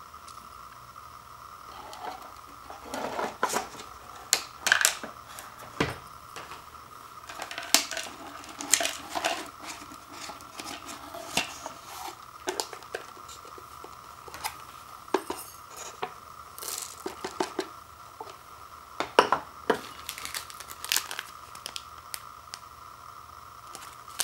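Hands handling a dry instant ramen noodle block against a ceramic bowl and crinkling the cup's packaging and a plastic soup base packet: irregular clicks, taps and rustles.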